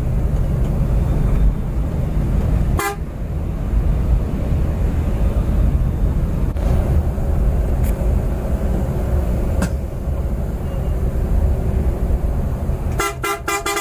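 Steady low rumble of a Scania coach driving on the highway, with vehicle horn toots: a short one about three seconds in, a brief fainter one near ten seconds, and a rapid string of five or six short toots near the end.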